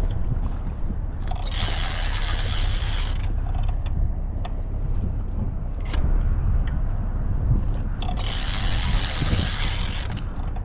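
Fishing reel whirring under the load of a hooked queenfish, in two bursts of about two seconds, the first about a second and a half in and the second about eight seconds in. A steady low rumble of wind on the microphone runs underneath.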